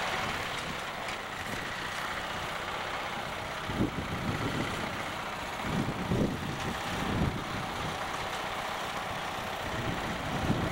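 Small riding lawn tractor's engine running steadily as it drives past pulling a loaded trailer, with a few low gusts of wind buffeting the microphone in the middle.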